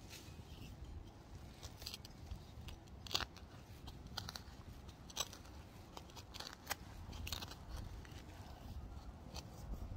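Hand trowel digging into garden soil: short, irregular scrapes and crunches, roughly one a second, over a low rumble.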